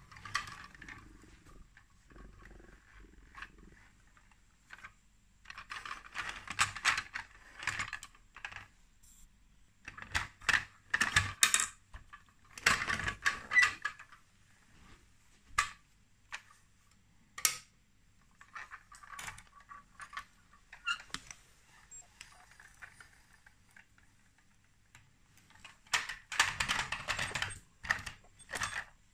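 Plastic wheels of a Lego Duplo toy truck rolling and rattling over plastic and turf surfaces in several pushes of one to three seconds each, with a few single sharp plastic clicks and knocks between them.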